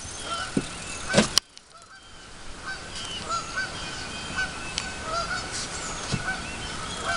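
Birds calling over and over in short, separate calls, with a brief thump about a second in.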